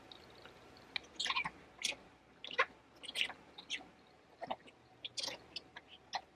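A pet bird nibbling and crunching food with its beak: a string of short, irregular crunches and clicks.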